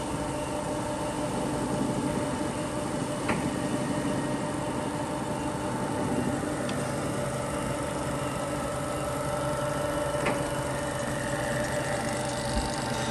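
Jones & Shipman 1078 universal cylindrical grinder running under power partway through its automatic grinding cycle: a steady mechanical hum of its motors and wheel spindle, with a few steady tones and a few faint clicks.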